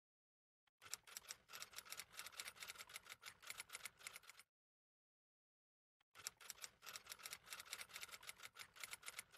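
Typing sound effect: rapid key clicks in two runs of about three and a half seconds each, with a gap of silence about two seconds long between them.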